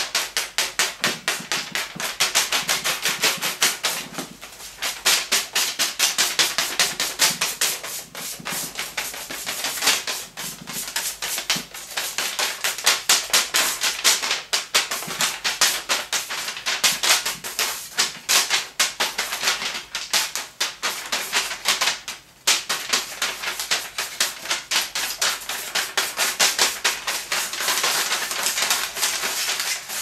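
Spinning ceiling fan blades slapping a sheet of paper held up into them: a rapid, continuous papery clatter, like a card in bicycle spokes. It drops away for a moment twice, as the paper shifts.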